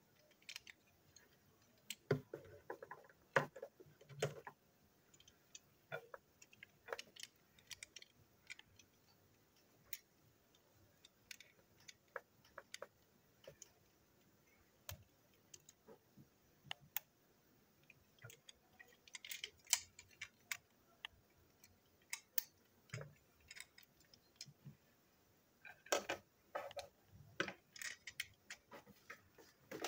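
Small clicks, taps and light rattles of the parts of a model steam locomotive being handled and fitted together by hand. The clicks come irregularly, in a few busier clusters.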